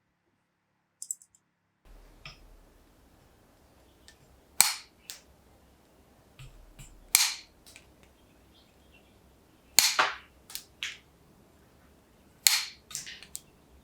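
Pincers working with four sharp, loud snaps about two and a half seconds apart. Each snap has a short tail, and most are followed by a few lighter clicks.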